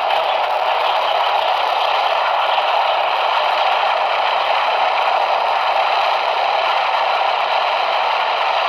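Steady radio static: an even hiss from a receiver tuned to a weak, poorly received signal.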